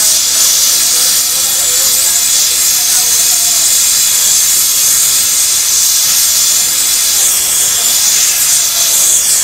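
Gas brazing torch flame hissing steadily while heating a carbide tip into a wire-drawing die for brazing. Faint wavering pitched sounds sit underneath.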